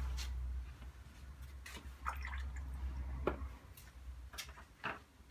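A watercolour brush being rinsed in a water pot: light dripping and splashing with several short clicks and knocks against the pot. A low rumble in the background fades out about three and a half seconds in.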